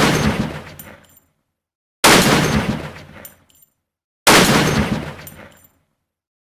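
Three gunshots from a CheyTac M200 Intervention sniper rifle, about two seconds apart, each a sharp crack trailing off over about a second.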